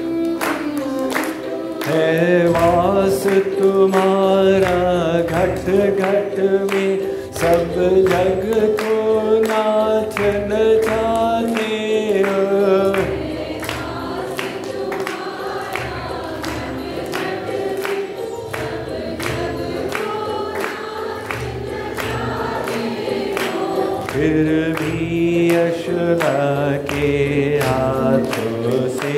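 Hindi devotional bhajan, a lead singer with a group joining in, over a steady percussion beat. The singing drops back for a stretch in the middle and comes in strongly again near the end.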